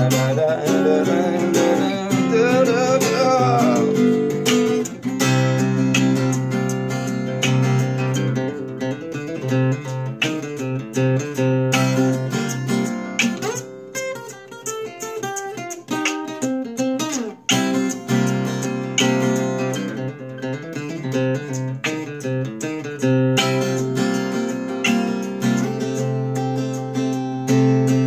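Solo acoustic guitar played with picked notes and strums, with a brief vocal line over it in the first few seconds. About halfway through the playing thins to sparser, quieter notes before the fuller strumming returns.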